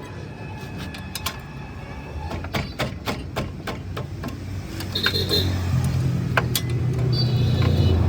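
Metal tools and parts clinking and knocking in a quick, irregular run of sharp taps. From about halfway through, a vehicle engine's low hum grows louder underneath.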